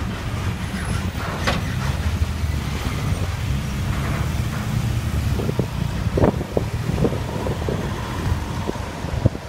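Engines of cars and a lorry driving off a chain ferry onto the slipway: a steady low rumble, with scattered clicks and knocks over the second half.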